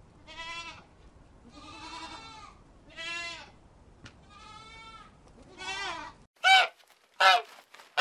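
A goat bleating about five times, each bleat long and quavering. About six seconds in, domestic geese give two short, louder honks.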